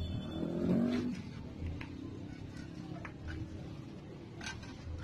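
Street-stall background: a low steady hum with a soft thud about once a second, a short pitched voice-like sound in the first second, and a few light clicks.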